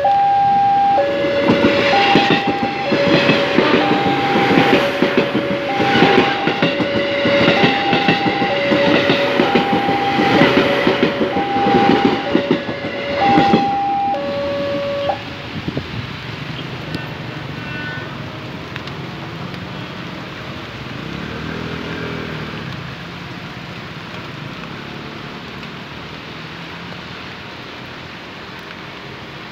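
Level-crossing warning alarm sounding a steady two-tone chime, high and low alternating about every half second, while a JR 203-series electric commuter train passes with its wheels clacking over the rail joints. Both stop about halfway through, leaving the hiss of wet road and a car passing on it.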